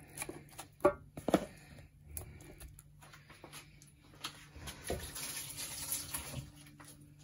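Chunks of meat dropped into a large cooking pot with a few soft knocks, then water poured into the pot for about two seconds near the end.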